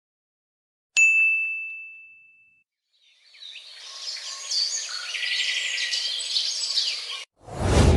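A single bright ding, a struck tone with a few higher overtones, that fades away over about a second and a half. After a short pause, a clip of many birds chirping and twittering lasts about four seconds and cuts off abruptly. Just before the end a sudden loud, noisy hit begins.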